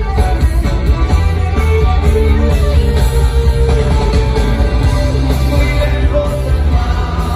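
Rock band playing live through a large festival sound system, heard from within the crowd: electric guitar, accordion and sung vocals over a heavy bass and drum backing.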